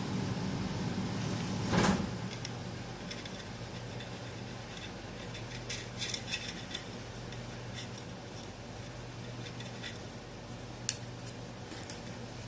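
Light clicks and taps of a phone case and small tools being handled on a work surface, with one louder knock about two seconds in, over a steady low hum.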